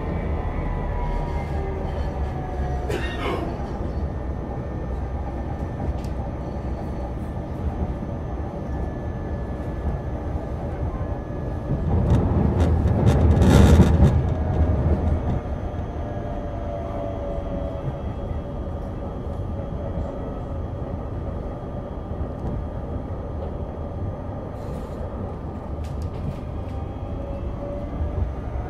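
Adtranz GT6N low-floor tram running, its electric drive whine falling in pitch over the first few seconds as it slows and rising again near the end as it gathers speed. Around the middle a louder rumble builds and peaks briefly with a short hiss.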